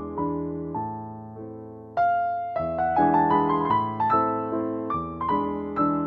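Slow, gentle piano music, with notes struck and left to fade. A louder phrase begins about two seconds in.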